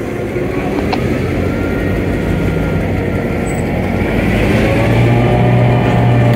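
EMD GP9 diesel-electric locomotive, its 567 V16 two-stroke diesel running as it rolls slowly past close by. From about four seconds in the engine gets louder and slightly higher in pitch.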